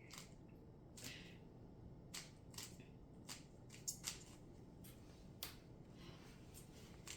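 Rubik's Cube being turned by hand: faint, irregular plastic clicks as its layers are twisted during a solve.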